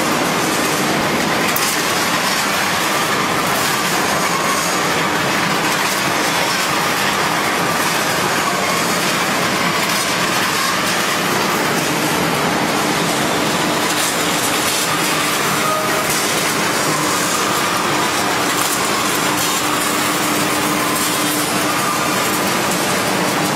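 High-tensile steel slitting line running: a steady mechanical noise with a constant hum under it as steel strip feeds through the rotary slitting knives and winds onto the recoiler.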